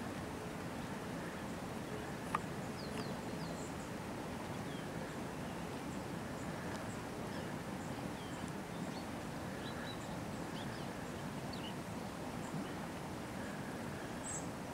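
Steady outdoor background hiss with faint, scattered short high bird chirps, and a single sharp click about two seconds in.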